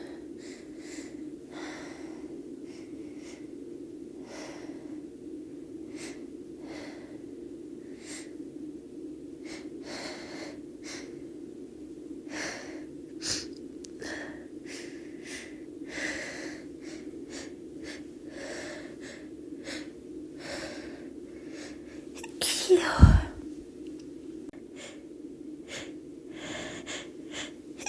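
A young woman's sneeze build-up: short, repeated breaths and sniffs, catching now and then, then one loud sneeze about three-quarters of the way through. The sneeze is induced.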